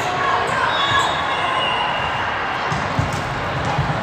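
Indoor volleyball rally: athletic shoes squeaking briefly on the court floor over and over, with a few dull thuds of ball contacts and footfalls, over the steady murmur of spectators in a large echoing hall.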